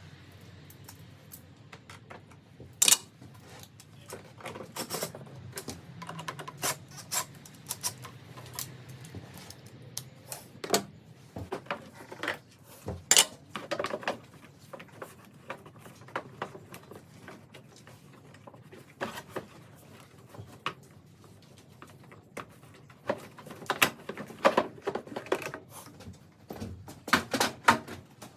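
Irregular clicking and clattering of hand tools and metal parts during work on an engine's cooling system, with a few sharper knocks and busier bursts near the end.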